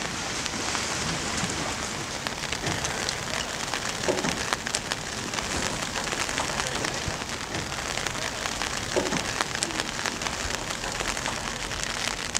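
Steady rain falling, an even hiss with many small drop hits scattered through it.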